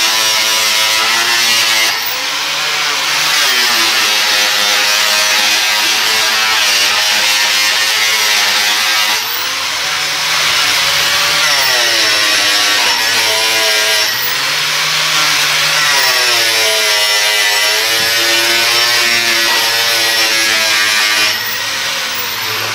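Electric angle grinder polishing stainless steel: a loud, steady motor whine with the hiss of the disc on the metal. Its pitch dips and climbs back several times as the disc is pressed onto and eased off the railing.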